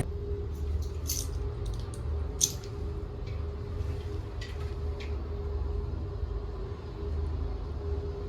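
Steady low rumble of street noise with a faint constant hum, and a few light clicks and rattles about a second in, at two and a half seconds and around five seconds.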